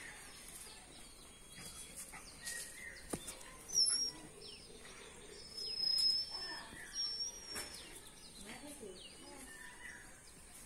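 Birds chirping, with a few thin high whistles, the loudest about four and six seconds in. Beneath them come the faint scuffles and brief whines of two dogs play-fighting, with a sharp click about three seconds in.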